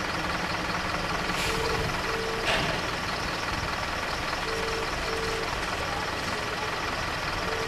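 Level crossing alarm sounding in a repeating pattern of two short beeps about every three seconds, over a steady background of idling and passing traffic. Two brief sharp sounds come about one and a half and two and a half seconds in.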